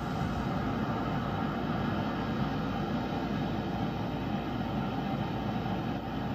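Montmorency Falls, a steady dense rush of falling water with no break.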